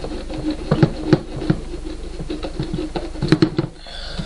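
Hands handling wires and connector plugs in a plastic RC boat hull: irregular clicks, taps and knocks of plastic, over a low steady hum.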